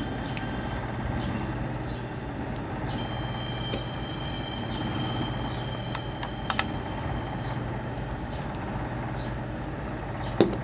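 LEGO bricks being handled and snapped onto a model: a quick double click about six and a half seconds in and a sharper knock near the end, over a steady background hum.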